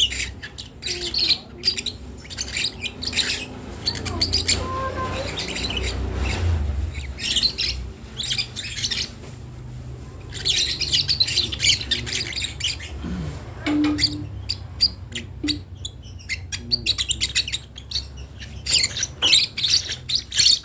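Young lovebird chirping and squawking in rapid, irregular bursts of short high calls with brief pauses between them: a chick's early calls as it learns to vocalise.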